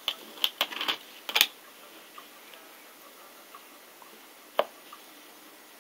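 Small hard clicks and taps of nail-stamping tools against a metal stamping plate, as polish is worked over the snowflake design: a quick run of ticks in the first second and a half, then one sharper tap later on.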